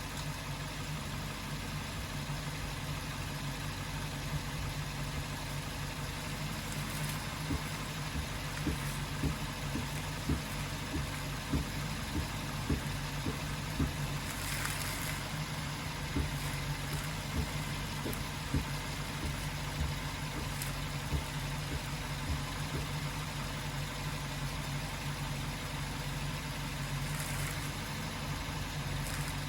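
Suzuki Jimny Sierra JB74's 1.5-litre four-cylinder engine running steadily, with a low hum. Irregular light clicks are scattered through the middle stretch.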